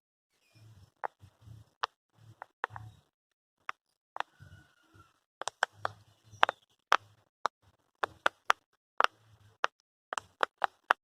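Silicone pop it fidget toy being pressed, its bubbles popping as a run of sharp clicks: a few scattered ones at first, then several a second from about halfway through.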